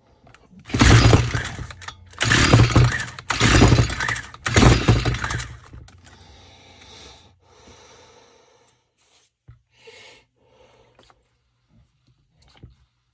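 Stihl FS 45 trimmer's recoil starter pulled four times in quick succession, the engine turning over without starting after being flooded. Fainter rattling and handling noise follows.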